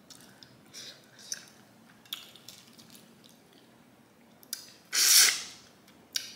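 Wet eating sounds from peeling and eating saucy boiled crawfish: a few small smacks and shell clicks, then a louder wet smack, under a second long, about five seconds in.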